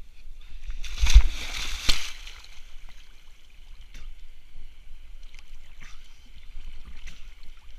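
River water splashing and sloshing close to the microphone as the camera is carried just above the surface, with a loud rushing burst about a second in, then a faint steady hiss of the water with small splashes.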